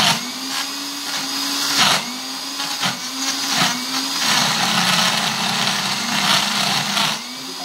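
Countertop blender running at high speed, crushing ice with chocolate drink mix and water. Its motor hum dips in pitch several times as the load changes, with sharp crackles from the ice at those moments.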